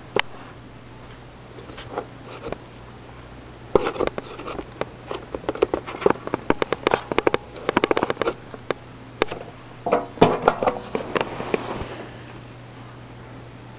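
Rapid clicking and scraping of hands working on coffee-maker parts, scraping hard mineral gunk out of the tubes, in dense runs from about four seconds in, with a breathy noise near the end.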